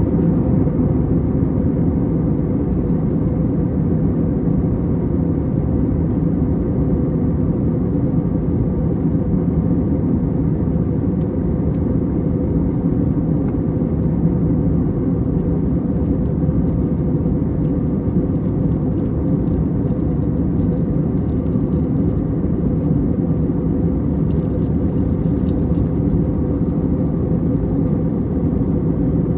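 Jet airliner cabin noise in flight: a constant low roar of engines and rushing air, with a steady hum riding on it.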